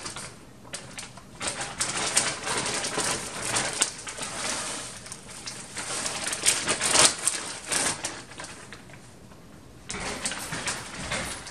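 A plastic potting-mix bag crinkling as it is handled, with potting soil rustling as it is poured and pressed by hand into a planter tier. The crinkling and rustling come and go irregularly, with a quieter stretch near the end.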